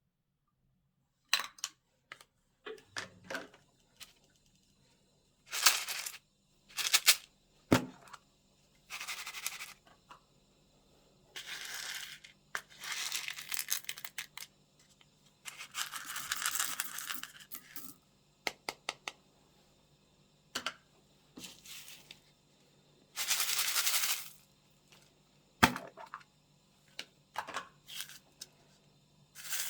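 Slime being mixed and squeezed by hand: irregular sharp pops and clicks between longer crackly bursts lasting a second or two.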